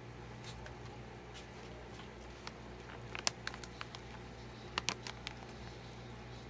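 Plastic snack bag crinkling in a hand, a scatter of short sharp crackles about halfway through, over a steady low hum.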